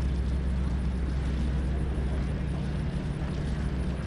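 Stearman biplane's radial engine running steadily at low power as the plane rolls along the runway.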